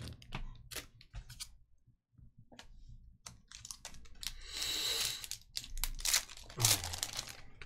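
Foil trading-card pack (2021 Panini Select UFC hobby pack) being handled and torn open: scattered crinkles and clicks, then a rasping tear of the wrapper about four and a half seconds in, followed by more crackling of the foil.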